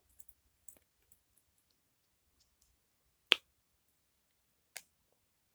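Silicone push-bubbles of a simple dimple fidget toy being pressed one by one, giving a few sharp pops spaced irregularly, the loudest about three seconds in.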